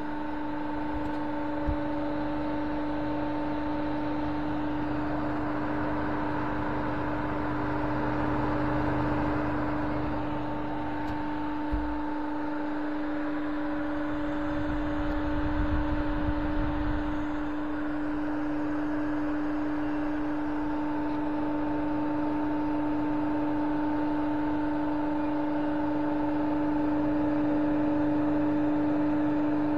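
ABB three-phase induction motor running unloaded on a test, giving a steady electrical hum with one strong mid-pitched tone and fainter overtones above it. There is a light knock about two seconds in and another near twelve seconds, and a brief low rumble in the middle.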